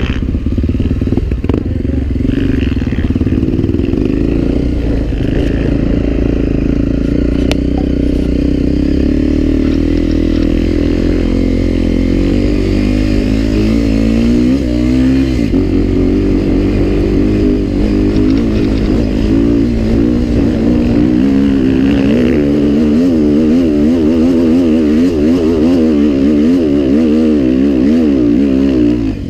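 Dirt bike engine running on the trail, its revs rising and falling constantly as the throttle is worked.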